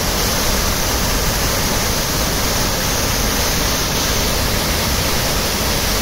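Large waterfall crashing into its plunge pool close by: a loud, steady rush of water.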